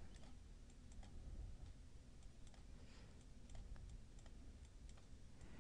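Faint, irregular computer mouse clicks over near-silent room tone, from short smudge-brush strokes being dabbed along the fur.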